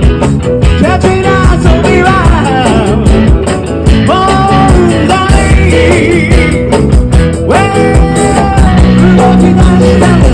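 Rock band music with a singer's voice carrying the melody over a steady beat.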